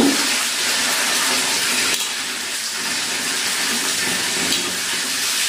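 Kitchen tap running onto puffed rice in a steel pan as a hand stirs it under the stream, rinsing the rice before soaking. The water makes a steady splashing.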